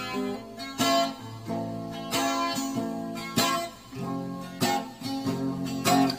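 Music: a guitar strumming chords, with a strong strum about every second and a quarter, the instrumental opening of a song.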